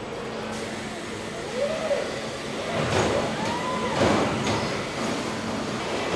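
Industrial robot arms moving around a car body shell, their servo motors whining up and back down in pitch twice, the second time higher and longer, with metallic clicks and knocks in the middle, over a steady factory hum.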